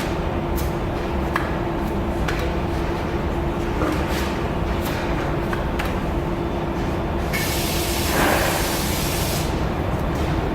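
Steady body-shop background hum with a constant low tone and a few light ticks and taps. About seven seconds in comes a hiss like a spray, lasting about two seconds.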